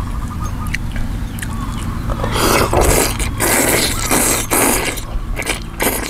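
A man slurping wide rice noodles from a bowl of thick tom yum soup: a run of loud, breathy slurps from about two seconds in, a short pause, then two more near the end. A couple of light clicks of utensils against the bowl in the first second and a half.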